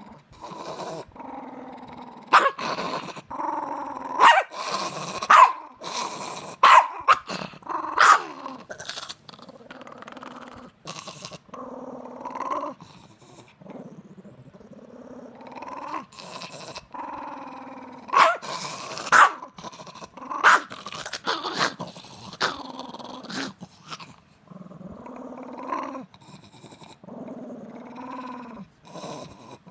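Small dog growling continuously while guarding a large bone it has claimed, a warning against having the bone taken away. The growl breaks into louder, sharper outbursts a couple of seconds in and again about two-thirds of the way through.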